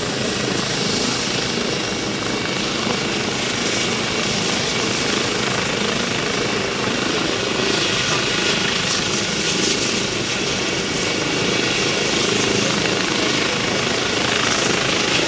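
Medical helicopter running steadily, its rotor and turbine making a continuous loud noise with a fast rotor flutter.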